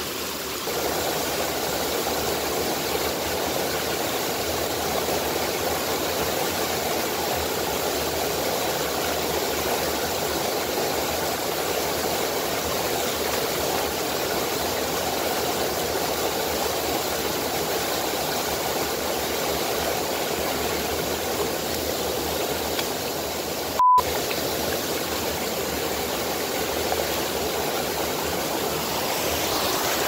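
Shallow stream water rushing steadily over the concrete floor of a culvert and spilling in a thin sheet over its concrete lip, a continuous even rushing. About two-thirds of the way through, the sound cuts out for an instant with a short beep.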